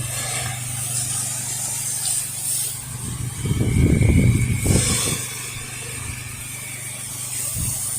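A spray rig's motor running with a steady hum while the soft-wash mix hisses out of the nozzle. Wind buffets the microphone about halfway through.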